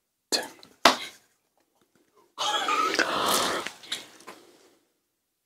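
A man coughing and sputtering as he brushes his teeth with hot sauce: two short, sharp coughs about half a second apart, then about two seconds of breathy, muffled stifled laughter and gasping.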